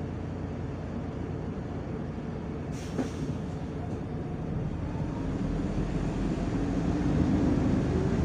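Inside a MAZ-105 articulated diesel city bus: the engine idles steadily, then revs up and grows louder from about five seconds in as the bus pulls away. A short hiss and a sharp click come about three seconds in.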